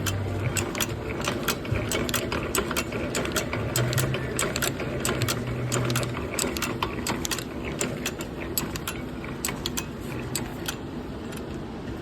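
Century-old hand-operated drill press being worked, its gears and feed mechanism clicking rapidly and unevenly, several clicks a second, thinning out near the end.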